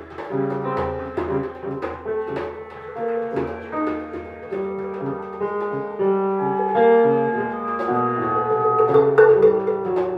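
Avant-garde jazz ensemble playing: grand piano notes and chords with percussion strikes and held wind-instrument notes.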